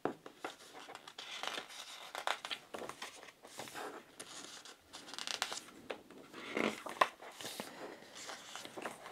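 Paper pages of a mediabook's bound booklet being leafed through by hand: soft, irregular rustles and page flips.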